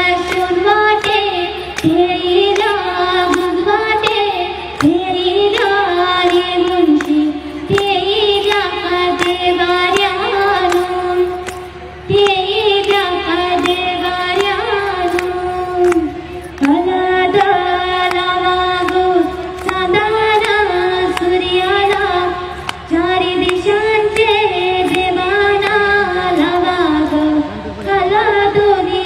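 Female voice singing a traditional Agri-Koli dhavala, a wedding haldi song, in long held, ornamented phrases with brief breaks between them, and sharp ticks sounding through it.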